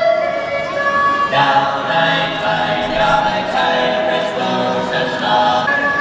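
Choir-like music: several voices or voice-like notes holding chords, with a lower part entering about a second in.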